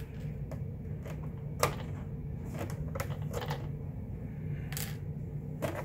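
Scattered small clicks and taps of hands working on a Redcat Blackout XTE RC truck, pulling the metal body clips from the body posts and handling the plastic body shell, over a low steady hum.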